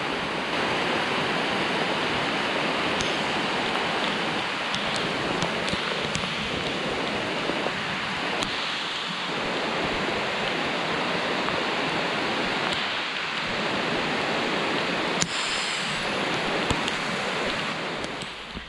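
Steady rushing hiss of water, with a few faint sharp ticks on top.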